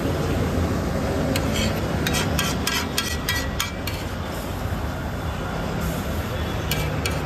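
Metal spatula clinking and scraping against a cooking pan in quick runs of sharp taps, first about a second in and again near the end, over a steady low rumble.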